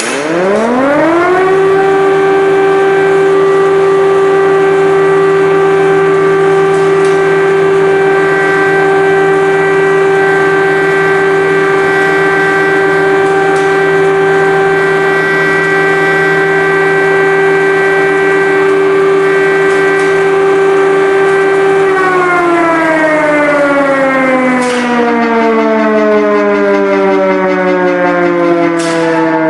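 Air-raid siren sounding an alert: it winds up to a steady wail within about a second and a half, holds it for about twenty seconds, then slowly winds down in pitch.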